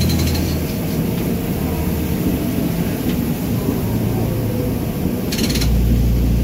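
Old diesel railbus running along the track, heard from the driver's cab: a steady low engine drone with wheel and rail noise. There is a short quick rattle of clicks at the start and again about five seconds in, after which the low drone grows louder.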